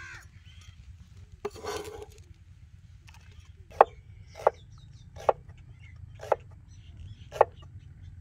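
A cleaver chopping on a wooden cutting board: five sharp knocks at uneven intervals about a second apart in the second half. About one and a half seconds in there is a short rustle of cut red onion pieces sliding off the blade into a clay bowl.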